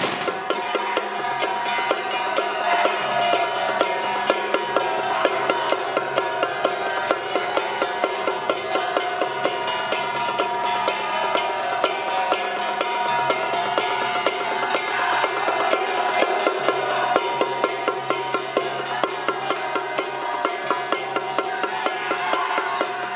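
Traditional Taiwanese temple-troupe percussion: a drum and gongs beating a fast, steady rhythm, with the ringing of the metal held under the strokes.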